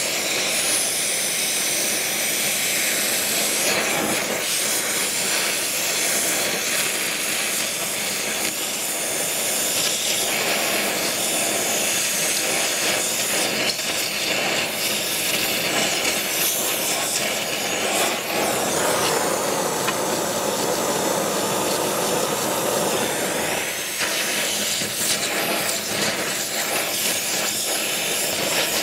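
Oxy-fuel torch flame hissing steadily as it heats a steam engine crankshaft's crank web to melt the old babbitt out.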